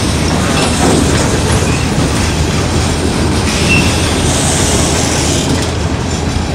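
Freight train boxcars rolling past, their steel wheels clattering steadily over the rails.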